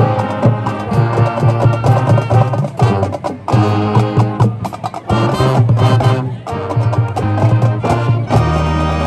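High school marching band playing, with brass over a steady drumline beat, moving into a long held chord near the end.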